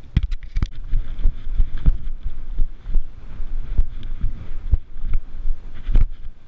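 Irregular low thumps and knocks as the wearer of a body-worn camera handles gear and moves about on sand and rock, with low rumble on the microphone. A quick run of sharp clicks and rustles comes in the first second.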